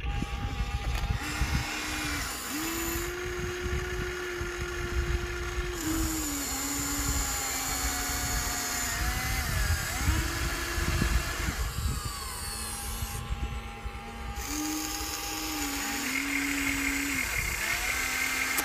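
Electric motors of a Huina remote-controlled toy excavator whining as the boom, arm and bucket move, the whine stopping, starting and stepping up and down in pitch every second or two.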